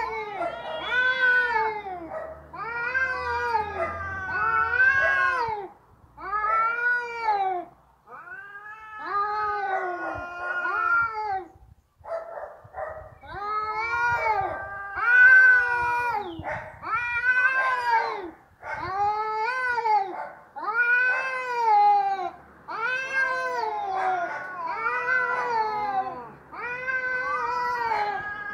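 Two cats yowling at each other in a face-off, the threat calls that come before a fight. A long run of drawn-out wails, each rising and then falling in pitch, comes about once a second, with a brief pause about halfway through.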